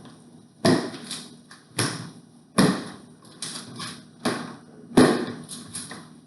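A series of about ten sharp knocks and thumps at uneven intervals, each dying away quickly: the e-bike's shipping box and packing being handled and opened.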